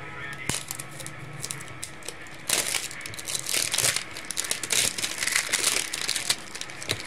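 Clear plastic shrink-wrap crinkling as it is pulled off a smartphone's cardboard box, in quick irregular crackles that grow loud about two and a half seconds in and die down just after six seconds.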